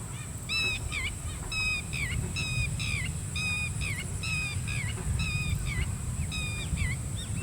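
A bird calling over and over, about once a second; each call is a short, level, nasal note followed by a quick falling one. A steady high-pitched hiss runs underneath.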